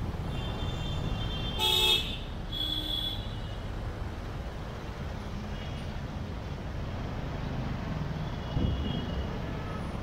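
Steady rumble of city traffic, with several short vehicle horn toots. The loudest toot comes about two seconds in, another follows soon after, and a fainter one sounds near the end.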